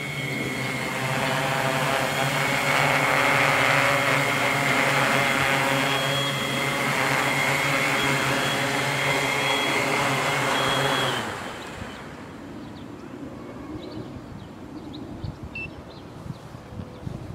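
Tarot FY680Pro hexacopter's six brushless motors (NTM 3536 910kv) and 12-inch APC props humming steadily in low flight close by, loudest a couple of seconds in. The hum cuts off abruptly about eleven seconds in as the craft lands and the motors stop.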